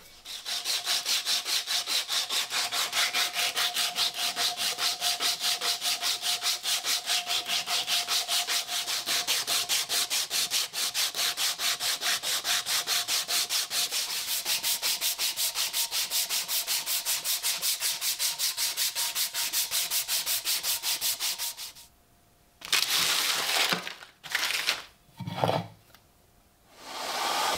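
Coarse P60 sandpaper strip pulled back and forth around a wooden axe handle, shoeshine-style, in quick even strokes, several a second. It stops about 22 s in, and is followed by a few short rubs.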